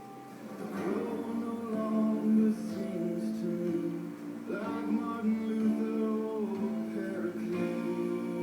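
A slow song with guitar and a sung vocal line, with long held notes.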